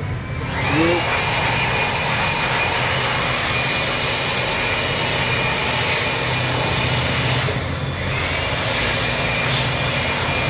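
A motor-driven workshop machine running with a high whine over a steady hiss. It winds up shortly after the start, cuts out briefly about three quarters of the way through, then winds up again.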